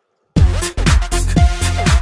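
Electronic dance music: after a brief silence at the start, a new section comes in with heavy bass and a steady beat.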